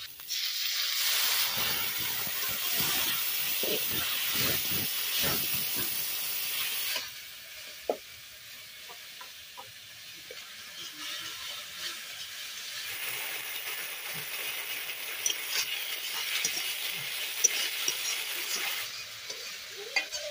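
Loud sizzling and hissing as water meets the hot oil and fried spice paste in a metal wok, with a metal spatula stirring and scraping the pan. The hiss starts suddenly, drops off about seven seconds in, then builds again to a steady sizzle with small pops as the fish curry cooks.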